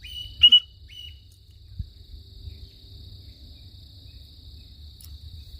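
Steady high-pitched drone of an insect chorus, with a few short high chirps in the first second, the loudest about half a second in.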